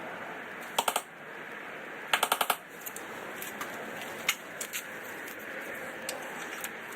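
Quick runs of sharp metallic clicks, one about a second in and a longer one around two seconds in, then scattered single clicks over a steady hiss: a magnet clacking against the steel underside of a Ferris F60Z zero-turn mower as it is swept through to pick up metal debris.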